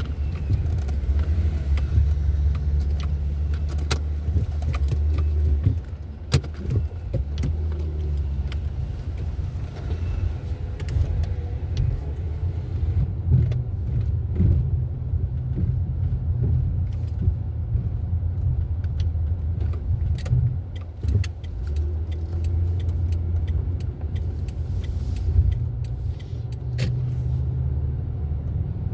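Car driving, with steady low road and engine rumble heard from inside the cabin and a few faint clicks and rattles.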